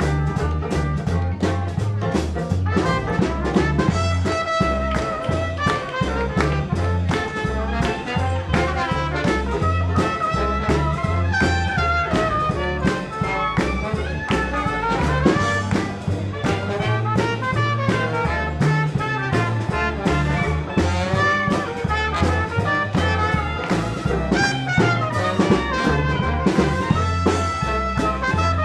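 Live traditional jazz band of trumpet, trombone, clarinet, banjo, string bass and drums playing a swing tune, the trumpet and trombone leading over a steady beat.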